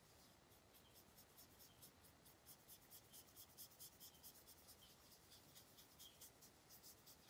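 Faint scratchy strokes of a dry paintbrush being worked over a painted surface, several short strokes a second, blending the colour in.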